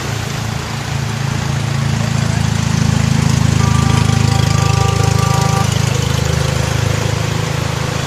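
An engine running close by with a fast, even beat, growing louder toward the middle. A steady tone sounds over it for about two seconds midway.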